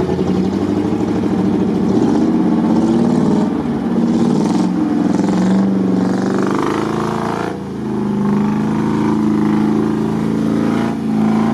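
4x4 off-road vehicle's engine revving hard as it drives through deep mud ruts, the revs rising and falling. The revs dip briefly about two-thirds of the way through, then pick up again.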